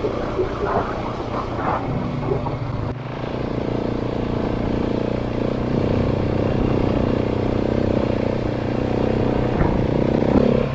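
Off-road motorcycle engine running steadily while riding, with wind and road noise. The sound changes abruptly about three seconds in and runs on as a steady engine drone.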